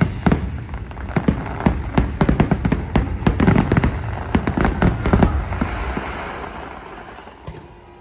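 Aerial fireworks bursting in a rapid, dense volley of bangs and crackles, which thins out and fades after about five seconds.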